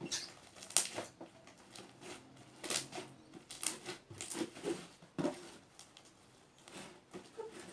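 A giant slime being stretched and handled, giving off irregular short wet smacks and crackles at uneven intervals.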